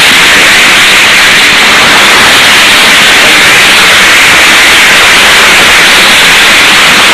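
Hall audience applauding, a steady, even roar of clapping on an old 1940s film sound track.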